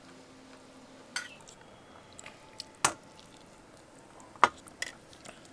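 Eating rice and chicken curry by hand from a stainless steel plate: a handful of sharp clicks and taps of fingers and food on the steel, the loudest about three and four and a half seconds in.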